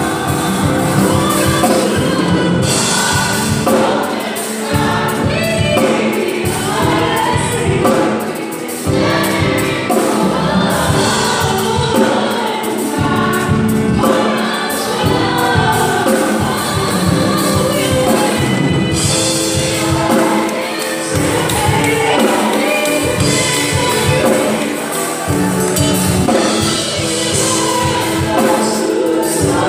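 Gospel choir singing with instrumental backing and a steady beat.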